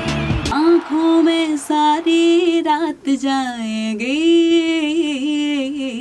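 A band with a woman singing, cutting off about half a second in to a woman singing alone, unaccompanied, holding long notes that slide smoothly between pitches.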